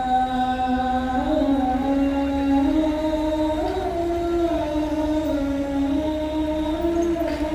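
A muezzin's voice chanting the adhan, drawing out the phrase 'hayya 'ala as-salah' in long, slowly wavering ornamented notes without a break.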